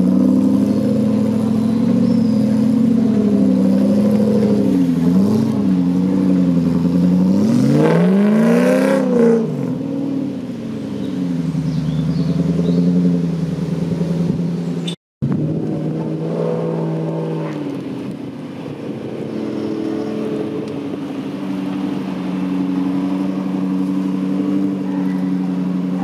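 Range Rover 3.9-litre V8 working under load through muddy ruts, its note wavering with the throttle. About eight seconds in it revs up sharply and falls back.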